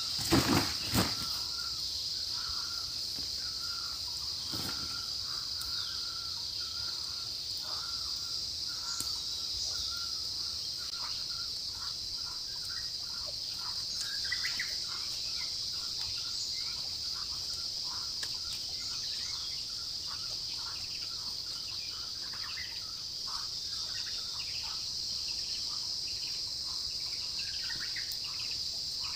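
Insects droning steadily at a high pitch, with short bird calls repeating over it and a few knocks in the first second.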